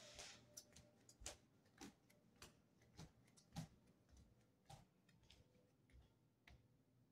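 Faint footsteps on a hard floor, about a step every 0.6 seconds at an even walking pace.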